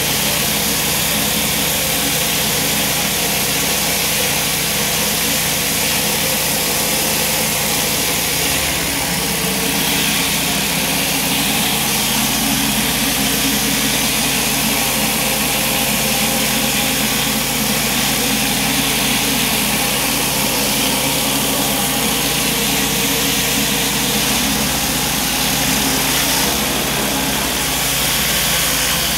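BE flat surface cleaner hissing steadily as its spinning high-pressure jets blast block paving, over the steady running of the pressure washer's engine.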